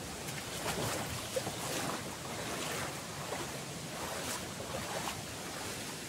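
Shallow creek water rushing over a rock bed close to the microphone, rising in several irregular louder swells of splashing.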